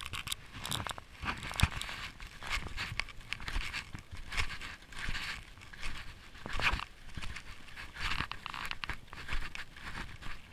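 Snowshoe footsteps crunching on packed snow in a steady walking rhythm, a little more than one step a second.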